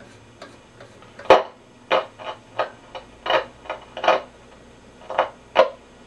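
Short, loud static bursts from the speaker of a Grunow 1191 all-wave tube radio as its tuning dial is turned, about nine at irregular intervals. The restorer takes each burst for a station being hit without its program coming through, and suspects an IF stage or the detector.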